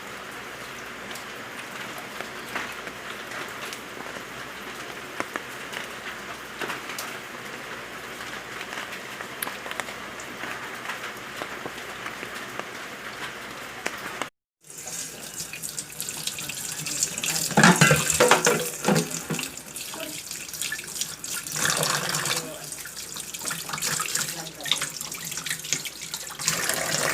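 Water sounds throughout: a steady, even hiss of water for the first half, then, after a brief break, tap water running and splashing into a sink in uneven gushes.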